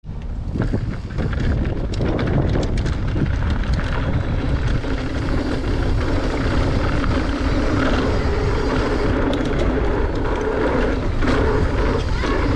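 Wind buffeting the microphone of a mountain bike rider's camera as the bike rolls down a trail, with the clatter of the bike over rough ground, heaviest in the first few seconds.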